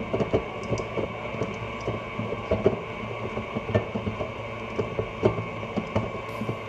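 Electric stand mixer running with a steady motor whine, with frequent irregular clicks and knocks from the beater working the dough in the metal bowl as cookie mix is poured in.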